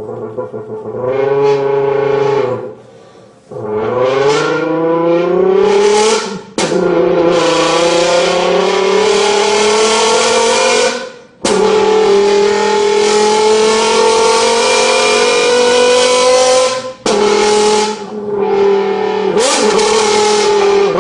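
A person imitating a Lamborghini V10 engine by buzzing or voicing into a drink can, rising in pitch through a series of revs with short breaks like gear changes. Two of the pulls are long, slow climbs of several seconds each.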